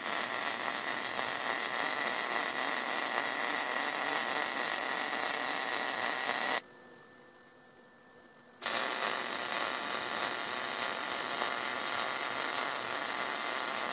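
MIG welding arc crackling steadily as a bead is run along a gap in a sheet-steel seam with .035 wire. The arc cuts off about six and a half seconds in and strikes again about two seconds later for a second run.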